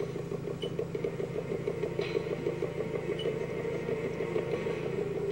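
A steady low hum with no other change.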